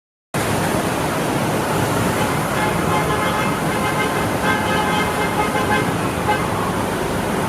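Steady street traffic noise of cars on a flooded road, starting abruptly just after the beginning, with faint thin tones in the middle of it.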